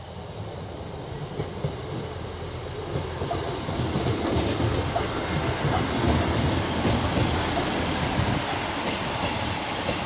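Class 158 diesel multiple unit approaching and passing. The train noise grows louder over the first four seconds or so, then stays steady as the coaches go by.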